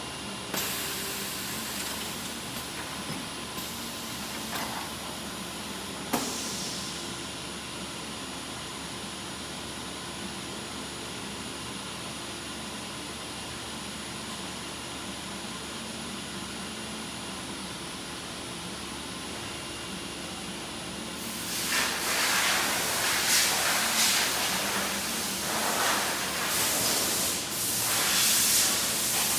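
Four-head welding machine for window profiles running with a steady hum. A sharp click comes about six seconds in. In the last eight seconds a series of loud air hisses follows, typical of its pneumatic clamps and heads venting compressed air.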